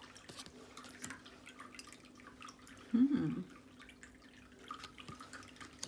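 Tarot cards being handled and flipped through: light taps and clicks of the cards as they are turned and laid down. About three seconds in, a short hummed "mm" from the person.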